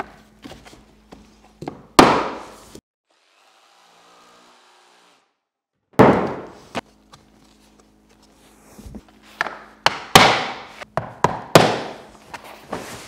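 Hard wooden knocks and thunks of laminate flooring planks being handled and knocked. One loud knock comes about two seconds in, then nearly three seconds of near silence, then another loud knock, and a quick run of sharp knocks near the end.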